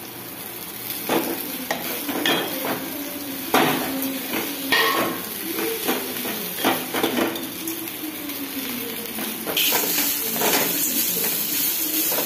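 Irregular knocks and scrapes of a plate and a wooden spatula against a metal kadai as steamed rice noodles are tossed into a tempering. Oil sizzling steadily sets in about three-quarters of the way through.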